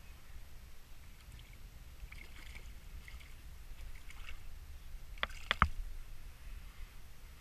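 Small hooked fish splashing at the surface beside a kayak as it is brought in, over a low rumble of wind on the microphone. A little past five seconds comes a quick run of sharp clicks and knocks, the loudest sound.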